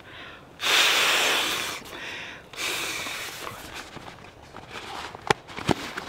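A gust of wind rushing through the trees, swelling about half a second in and dying away over a few seconds, with two sharp clicks near the end.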